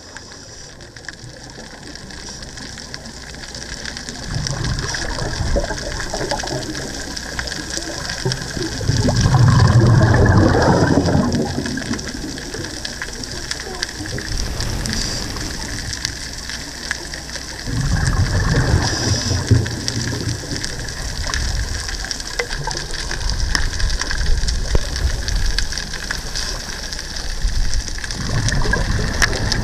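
Underwater recording of a scuba diver's regulator exhaust bubbles: several long bursts of bubbling over a steady water hiss, the loudest about a third of the way in.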